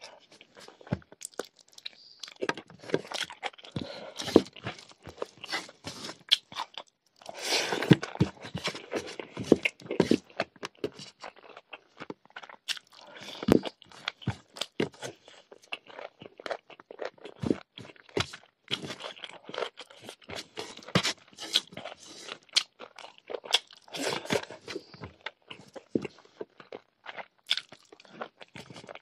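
Close-up sounds of a person eating rice and pork curry by hand: dense, irregular crunching and chewing, with a brief pause just before the middle.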